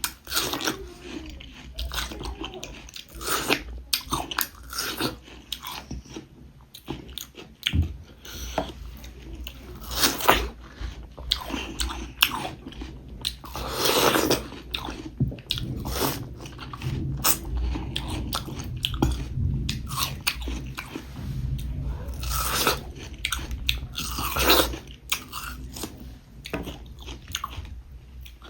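Close-miked mukbang eating: a person biting and chewing food, with irregular clicks and a few louder bites.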